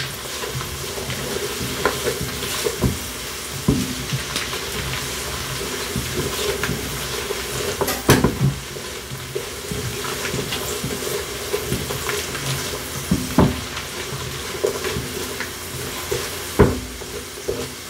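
Chopped onions and white bella mushrooms sizzling in butter in a frying pan as they sweat down, stirred with a silicone spatula that scrapes and now and then taps against the pan.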